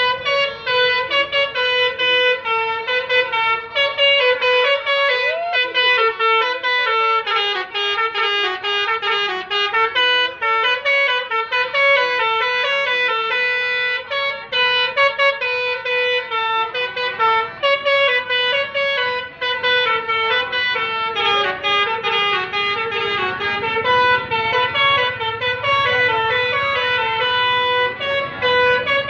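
Bus telolet horn of the basuri type, a multi-trumpet musical air horn, playing a melody of quick stepping notes without a break.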